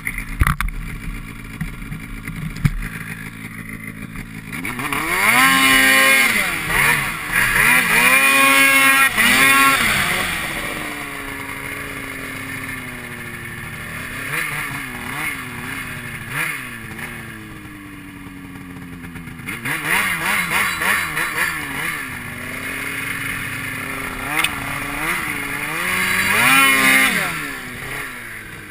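Snowmobile engine under hard throttle in deep snow, revving up and down in pitch in two long bursts, about five and twenty seconds in, and running lower between them.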